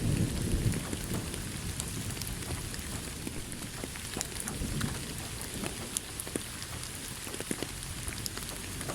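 Steady rain pattering, with scattered sharp drop hits close by. The low rumble of a thunderclap fades out in the first second.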